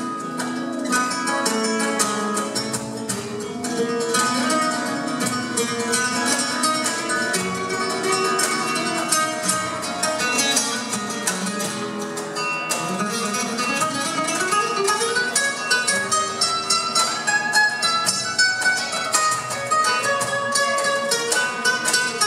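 Two nylon-string flamenco guitars playing together live, dense plucked melodic lines over chords, with a quick rising run a little past the middle.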